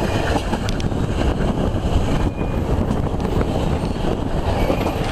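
Narrow-gauge train carriage running along the track, a steady low rumble, with wind buffeting the microphone held out of the carriage window.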